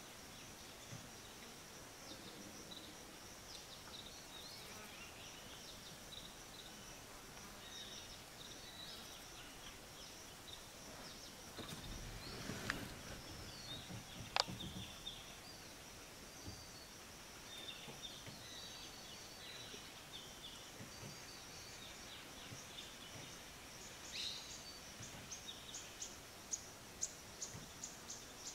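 Faint forest ambience: small birds chirping in short high notes over a steady high insect drone. About twelve seconds in comes a brief rustle with a sharp click, and a run of short ticks near the end.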